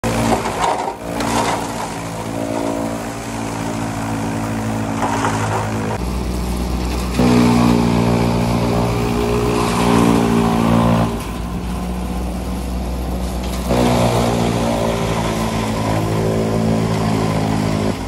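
Tractor engine driving a PTO-powered chaff cutter that is chopping green bullet grass (napier) fodder, running steadily under load. Its pitch and loudness jump several times.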